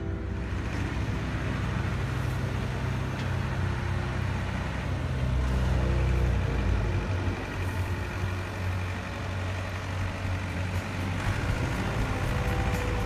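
Steady engine-like running of radio-controlled scale model construction vehicles, a wheel loader and a dump truck, with the loader driving and scooping loose dirt.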